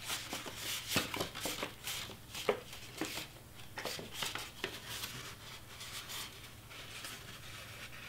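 Cardstock being folded and creased by hand along its score lines: faint rustling and crackling, with a couple of sharper snaps about a second and two and a half seconds in.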